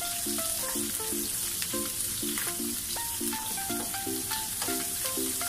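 Onions sizzling in hot olive oil in a non-stick frying pan while a wooden spatula stirs them, with a few light clicks of the spatula against the pan. Background music of short repeated notes plays over it.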